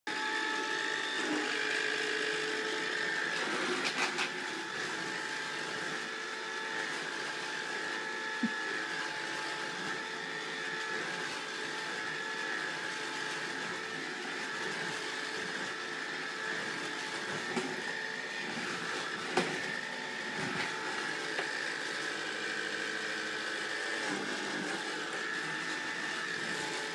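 Vacuum cleaner motor running steadily with a high whine, with a few short knocks and bumps now and then.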